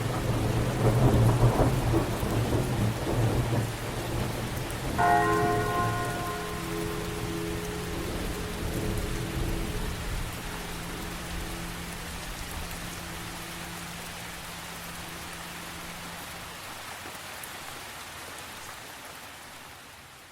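Rain falling steadily with a heavy rumble of thunder in the first few seconds. About five seconds in a bell is struck and keeps ringing, its tone coming back at intervals and fading out along with the rain.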